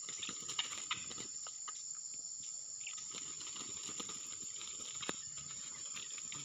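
Steady high-pitched chorus of crickets, with irregular rustling and sharp clicks close by, the loudest about half a second and a second in, and again about five seconds in.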